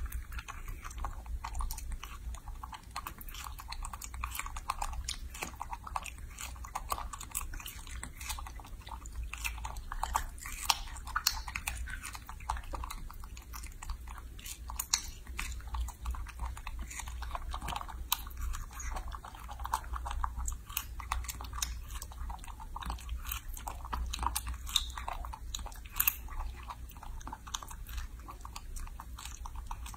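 A baby macaque biting into and chewing fresh strawberries, a steady run of small chewing clicks and smacks.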